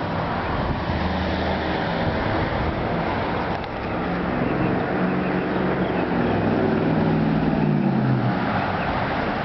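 A car engine running over a steady rush of wind or road noise. Its pitch climbs from about four seconds in and fades out near the end.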